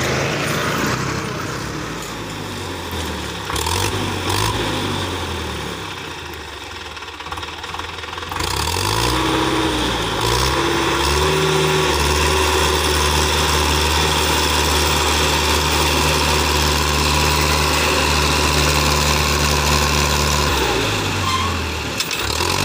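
Farm tractor's diesel engine pulling a loaded sugarcane trailer: it revs up about a third of the way in, runs steadily under load for several seconds, then drops back near the end.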